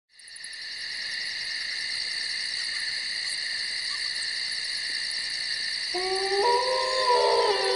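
Steady, high-pitched chirring of night insects, fading in at the start, with a long, howl-like wail joining about six seconds in.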